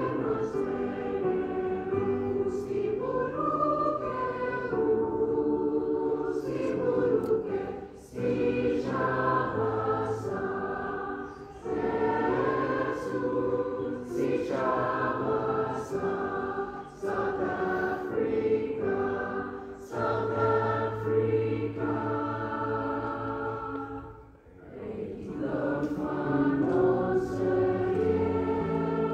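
A choir singing in sustained phrases, with brief pauses between them, the deepest about three-quarters of the way through.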